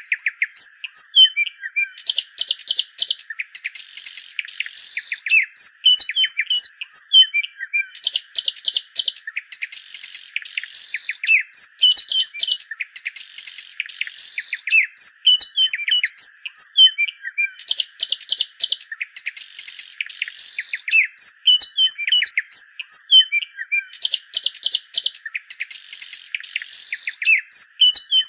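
Songbird chirps, quick trills and raspy calls, all high-pitched, in a short recording looped so that the same phrase sequence repeats about every six seconds.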